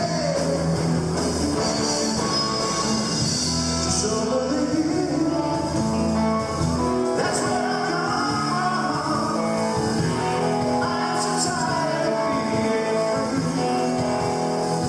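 Rock band playing a song live: electric guitar and singing over a steady band sound.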